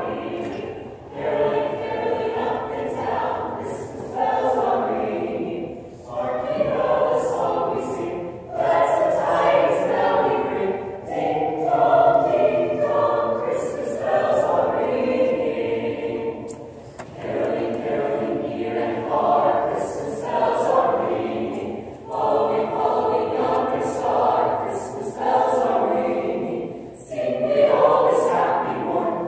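Mixed high-school choir singing a Christmas carol a cappella, in sung phrases with brief breaks between them.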